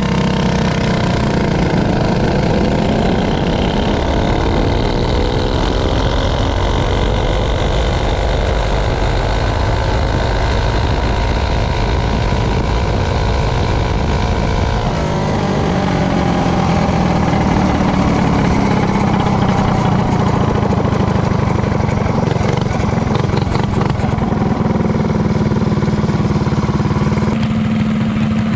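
Vehicle engine running, its pitch sliding up and down through the first half, then settling into steadier, lower running from about halfway.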